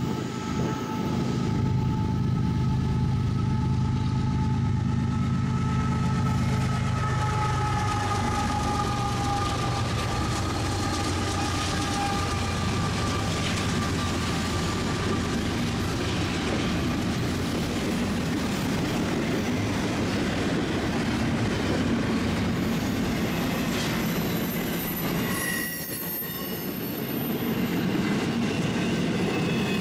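Diesel locomotives of a Norfolk Southern freight train passing close by, with the engines' low hum under a two-tone locomotive horn that drops slightly in pitch and fades out in the first dozen seconds. After that comes the steady noise of freight cars rolling past on the rails.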